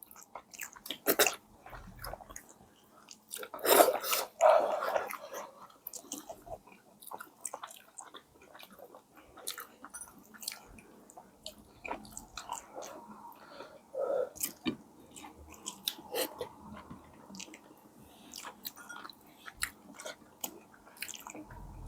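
A person chewing and biting food close to the microphone: many small mouth clicks and smacks, with louder bites about one and four seconds in.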